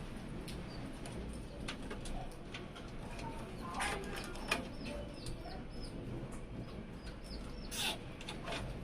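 Bird calls in the background, a run of short chirps, over a steady low hum. Scattered clicks and knocks, the loudest a little under halfway through and near the end.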